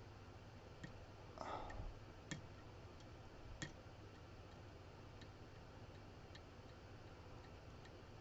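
Faint, scattered small metal clicks of a short-hook lock pick working the pin stack of a CX5 lock, with a brief scraping rustle a little over a second in.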